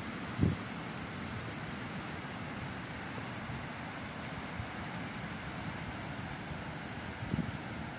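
Steady hiss of a car driving on a rain-soaked road, tyres on wet tarmac, with a short low thump about half a second in and a few smaller ones near the end.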